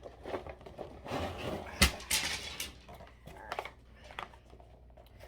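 Parts of a drying rack being handled and laid out: rustling and light clatter, with one sharp knock a little under two seconds in.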